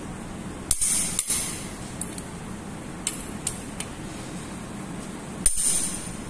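Click-type torque wrench tightening cylinder head bolts: a pair of sharp metallic clicks about a second in and another near the end, each marking a bolt reaching the torque set on the wrench, with lighter clinks of the wrench and socket in between.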